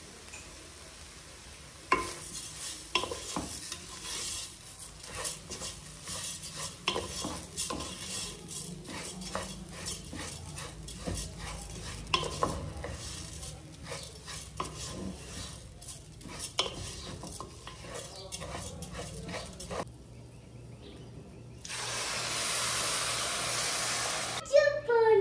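Wooden spoon stirring rice and shredded chicken frying in a pot, with irregular scrapes and knocks against the pot over a faint sizzle. Near the end, water poured from a plastic tub into the hot pot makes a loud, steady rush for about three seconds.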